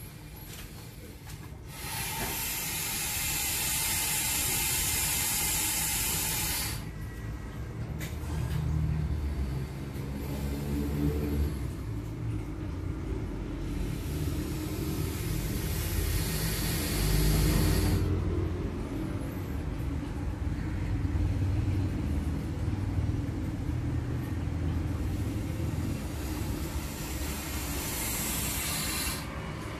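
Burmese python hissing: long drawn-out threat hisses, three of them, starting about 2 seconds in, around the middle and near the end. Low rumbling comes in between the hisses.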